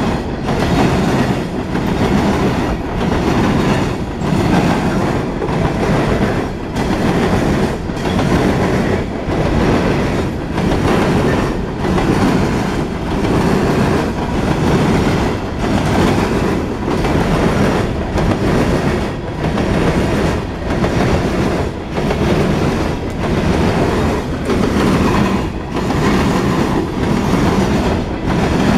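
Coal hopper cars of a freight train rolling past at a steady speed. The steel wheels clatter on the rails in a rhythm that swells about every two seconds.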